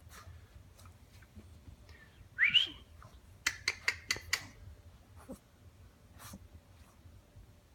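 A short rising whistle about two and a half seconds in, followed by a quick run of sharp clicks or taps and a few scattered ones after.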